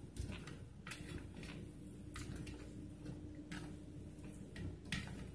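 Close-up eating sounds: a person chewing with soft, scattered mouth clicks and smacks, over a faint steady hum.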